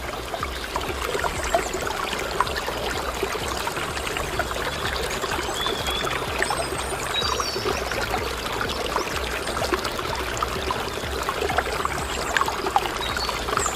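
Water pouring and trickling steadily, with scattered small splashes and a few faint bird chirps.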